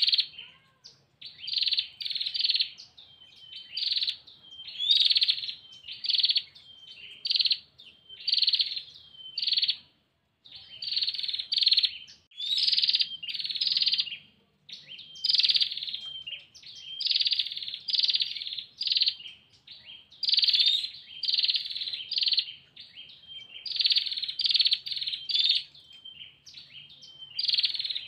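Female prinia (prenjak) giving its rapid, rattling trill call: short buzzy bursts repeated over and over, roughly one a second, with a few thin rising notes between them. This is the female's call to a male.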